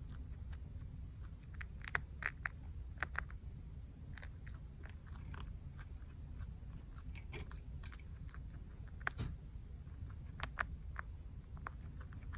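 Chinchilla chewing carrot leaves: small, sharp, irregular crunches and clicks that come in clusters, over a low steady hum.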